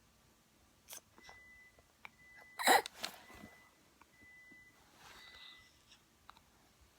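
Microwave oven beeping: several high, steady electronic beeps of about half a second each, spaced irregularly. A loud, short burst of noise cuts in about two and a half seconds in.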